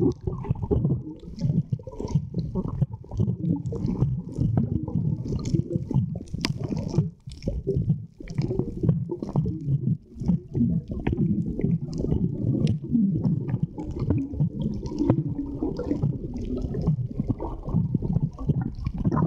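Muffled underwater sound picked up by a camera in its housing: a low, continuous rumbling water noise with many small clicks scattered through it, and gurgling as bubbles rise past the diver.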